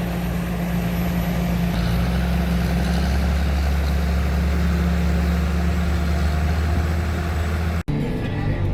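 Diesel farm tractor engine running steadily with a low drone. It cuts off suddenly near the end.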